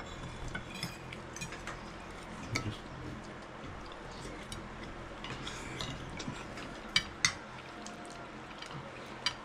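Cutlery clinking and scraping on plates during a meal, with two sharp clinks about seven seconds in and another near the end.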